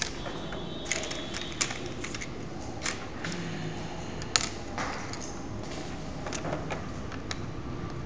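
Perforated plastic construction-kit strips picked up and set down on a tabletop: scattered light clicks and taps at irregular intervals, the sharpest one about four and a half seconds in.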